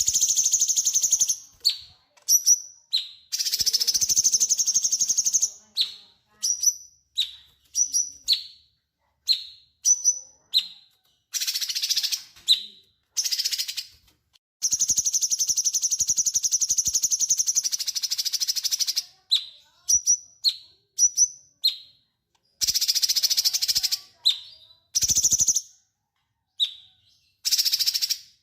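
A cucak cungkok singing energetically: long rapid rattling trills of one to four seconds alternating with short, sharp, downward-slurred chip notes, with brief pauses between phrases.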